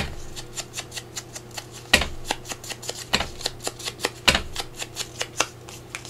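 Foam ink blending tool dabbed on an ink pad and brushed along the edge of a paper circle: a quick, irregular run of soft taps and scuffs, with a few sharper taps among them.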